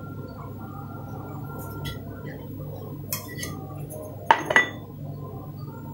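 Metal and glass kitchenware clinking as it is handled: a light clink about three seconds in, then two sharper clinks close together about a second later, over a steady low hum.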